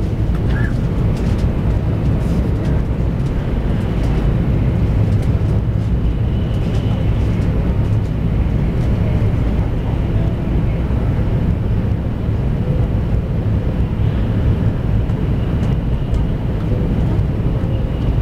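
High-speed electric train running at speed, heard from inside the passenger car: a steady low rumble of wheels on rail with a rush of air noise over it.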